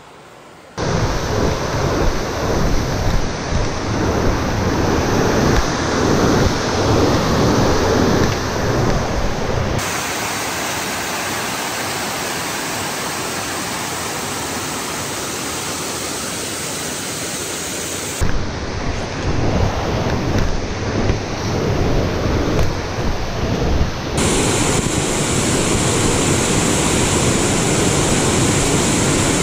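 Small waterfall spilling over a rock ledge into a pool: a steady rush of falling water. It starts suddenly about a second in and changes abruptly in level and tone a few times.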